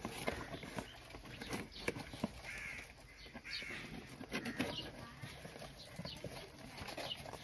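Faint crinkling, rustling and tapping of a plastic courier mailer being pulled and torn open by hand, with a few faint bird calls in the background.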